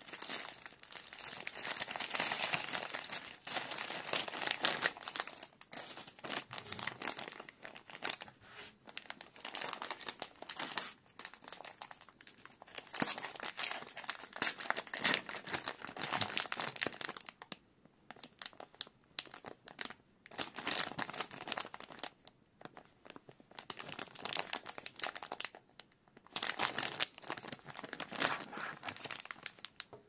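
Thin plastic packaging crinkling and rustling as a plastic mailer bag is torn open and plastic product bags are handled in nitrile gloves, in bursts of a few seconds with short pauses between.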